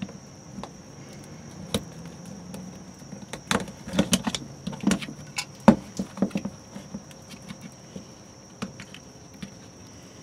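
Tongue-and-groove pliers clicking and scraping on the metal of an RV city water inlet fitting as it is gripped and twisted, with a flurry of sharp clicks a few seconds in. The fitting is stuck tight on its pipe.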